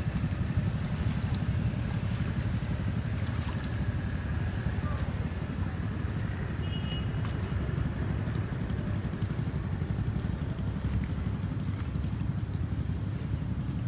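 Outdoor street ambience: a steady low rumble, with a brief faint high chirp about seven seconds in.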